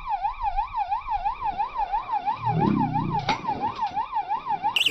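Electronic fishing bite alarm wailing like a siren, its tone sweeping up and down about three to four times a second: a fish has taken the bait. A second, higher-pitched alarm joins near the end.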